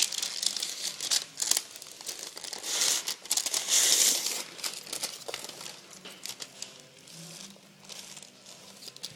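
Plastic packaging crinkling and rustling as it is handled, in irregular spells with small crackles, loudest about three to four and a half seconds in.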